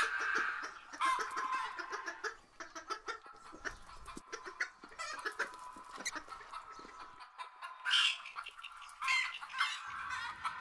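Domestic hens clucking, a continuous flock chatter with louder calls about a second in and again around eight seconds in.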